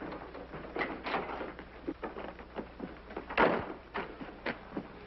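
Footsteps and knocks on wooden boards as a door is opened and shut, a string of irregular short thuds with the loudest about three and a half seconds in.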